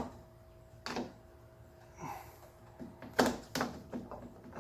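Light clicks and knocks of a turn-signal lamp, its gasket and wiring being handled and fitted into a billet bezel, with the sharpest knocks a little past three seconds in. A faint steady hum runs underneath.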